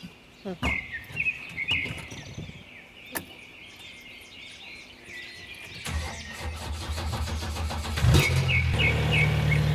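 Birds chirping, then about six seconds in a low diesel engine sound builds. About eight seconds in, a JCB 3DX backhoe loader's engine starts with a loud burst and settles into a steady idle while birds keep chirping.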